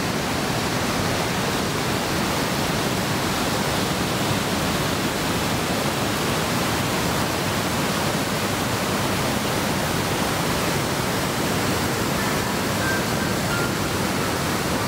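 Steady rush of a fast, high-running creek in whitewater, with a few faint short high notes near the end.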